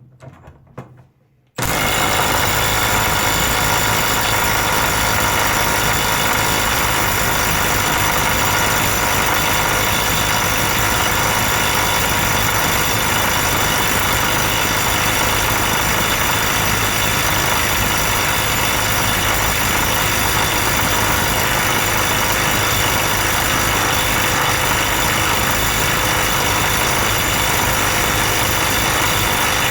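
Milwaukee M12 Stubby 1/2-inch impact wrench starting suddenly about a second and a half in, then hammering without a break at a steady level. It is being run flat out for a long stretch to heat it up toward its over-temperature cutoff.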